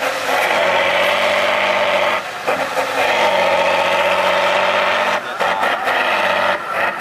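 Tatra 813 trial truck's diesel engine running hard at high revs under heavy load on a steep climb. The revs drop off briefly about two seconds in and again around five seconds, then pick up again.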